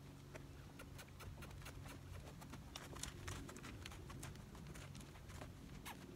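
Faint hoofbeats of a saddled young mustang moving over sand: soft, irregular pattering steps with light clicks.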